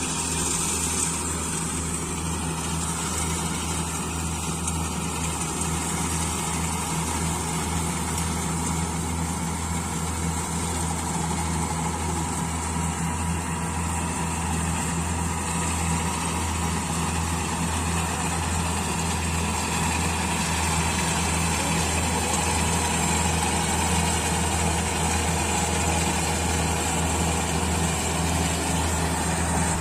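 Combine harvester running, a steady, even engine drone that holds without revving up or down.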